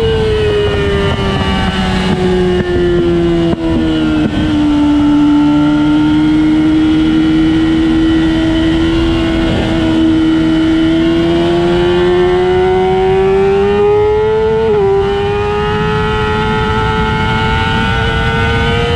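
Engine of a vehicle lapping a race track. The revs fall over the first four seconds, hold low through a slow section, then climb steadily, with a gear change about fifteen seconds in, over steady wind and road rush.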